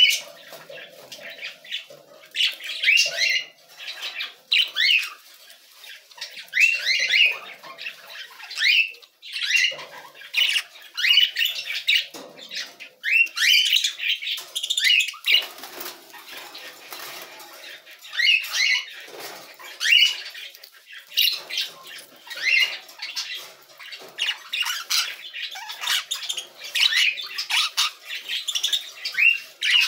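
Budgerigars chattering: a busy, continuous run of short, sliding chirps and squawks, one after another with only brief gaps.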